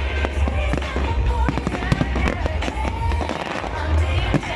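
Fireworks display: a rapid, dense run of cracks and bangs from bursting shells, with music and its heavy bass playing underneath.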